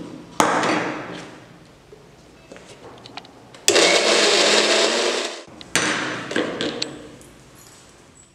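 Electric mixer grinder pulsed three times, grinding peanuts, sesame, roasted gram and soaked tamarind toward a chutney paste in its steel jar. Each burst starts suddenly as the motor switches on and tails off as the blade spins down; the middle run is the longest, about a second and a half.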